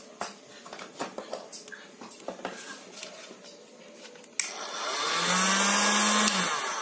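Light handling clicks, then about four seconds in a handheld hot air gun is switched on with a click and its blower spins up into a loud, steady rush of air with a low hum. This is the freshly repaired gun, with its heating element replaced, being powered up to test it.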